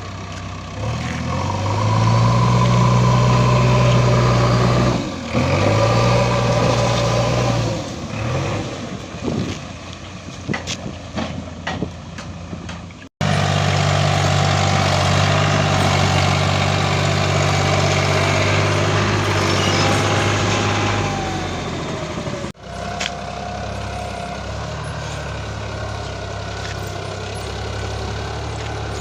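Heavy diesel machine engines running and revving hard under load, straining to pull a harvester out of mud. The sound breaks off sharply twice, about a third and three-quarters of the way through, where the recording is cut.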